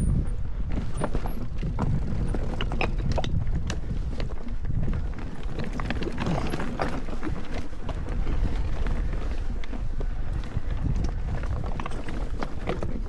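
Electric mountain bike rattling and clattering over rough singletrack: a steady low rumble of tyres on dirt, broken by many quick knocks and clicks from the bike over roots and rocks.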